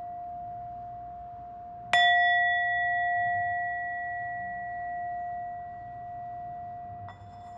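A bell rings with one long, clear tone. It is struck again about two seconds in, setting off a bright ring with higher overtones that die away slowly. A second strike comes near the end.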